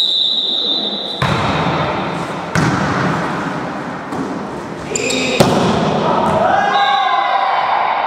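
Referee's whistle blowing for about a second, then sharp volleyball hits as the ball is served and played back and forth over the net, about three strikes. Players shout and cheer over the last couple of seconds as the point is won.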